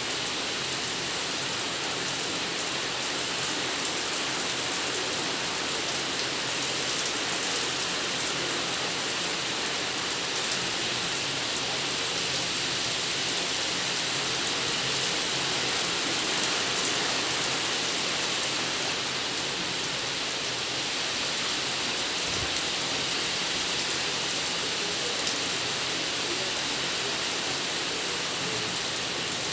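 Steady rain falling, an even hiss of many drops with a few louder drop ticks here and there.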